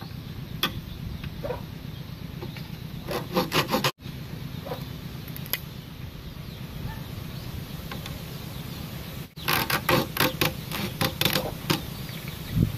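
Small hacksaw cutting a thin bamboo stick in quick short strokes, one burst about three seconds in and a longer one from about nine and a half to eleven and a half seconds, over a steady low hum.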